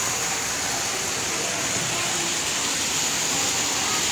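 Rain falling steadily, an even unbroken wash of noise.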